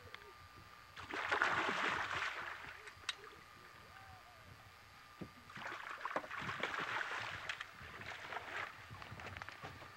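Water splashing and sloshing beside a boat as a hooked sheefish thrashes at the surface, in two bouts: one about a second in and a longer one from about five and a half seconds.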